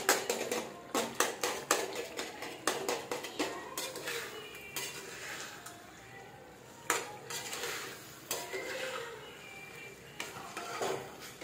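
Metal spoon scraping and knocking against a karahi as chicken with ginger-garlic paste is stirred and sautéed. The strokes come fast and close together for the first few seconds, then grow sparser.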